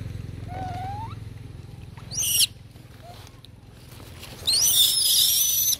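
Baby long-tailed macaque crying with shrill screams: a short, sharply rising scream about two seconds in, then a longer, wavering, louder one near the end that cuts off suddenly. A faint rising call comes first.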